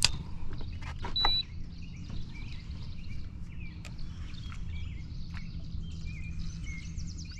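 Small birds chirping repeatedly over a steady low rumble, with a few sharp clicks in the first second and a half.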